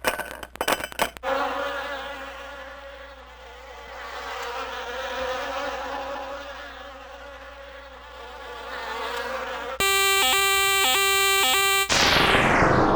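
A run of sound-effect samples from a jingle and effects pack. A few sharp clicks come first, then a long buzzing like a fly that swells and fades for about eight seconds. Electronic beeping tones pulse for about two seconds after that, and a loud noisy burst near the end dies away.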